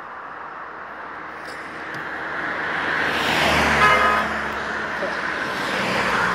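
A motor vehicle passes close by: its engine and road noise swell to a peak about four seconds in and then fade. A brief pitched tone sounds at the peak.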